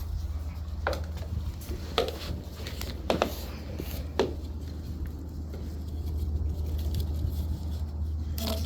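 Shiba Inu puppies' paws tapping and scuffling on a hard floor: about four separate taps a second or so apart, then a louder scuff near the end, over a steady low hum.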